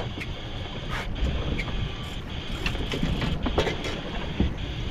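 Twin outboard motors on a small fishing boat running steadily at low speed, with water and wind noise and a few short sharp clicks and knocks of gear being handled.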